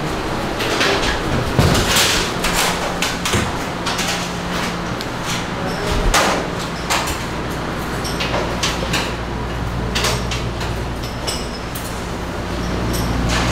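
Busy commercial galley kitchen: frequent knocks, clatter and door-like bangs over a steady low hum of machinery.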